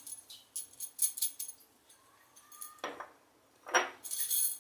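Light metallic clinks and taps of a spoon against a bowl and spice containers while spices are added to mashed potato, with two sharper knocks about three and four seconds in.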